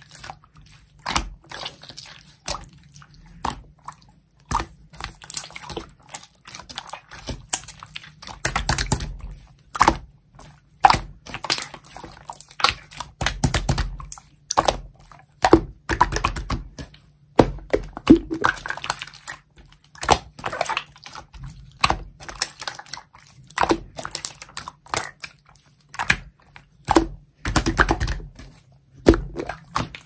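Clear slime made with aloe soothing gel being stretched, folded and squeezed by hand. It gives wet, sticky squishes and crackly clicking pops in irregular bursts about once or twice a second.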